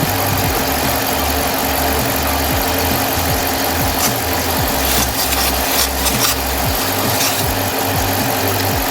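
Smittybilt 2780 portable air compressor running steadily while inflating a 33-inch truck tire: a continuous mechanical hum with a regular low pulsing throb.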